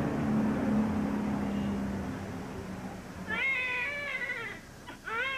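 Steady street traffic noise, then a newborn baby crying: two short cries about three seconds in, each rising and falling in pitch.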